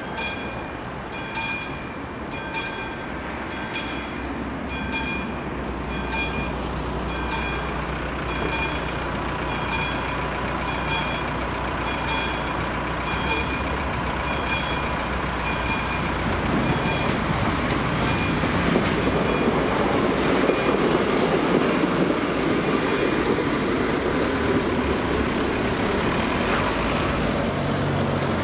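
Warning bell of an AŽD 71 level crossing ringing in even pulses, a little more than one a second, and stopping near the end. A passenger train approaches under it, with a steady low engine hum, then a louder rumble building as the train passes over the crossing.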